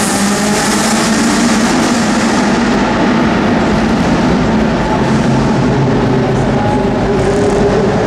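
Race-prepared hatchback's engine running hard through a slalom, its note rising and falling as it revs up and eases off between turns.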